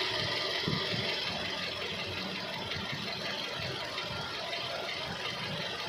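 Toyota 2AR-FE 2.5-litre inline-four with Dual VVT-i, idling steadily with a knock that the owner puts down to the timing chain tensioner.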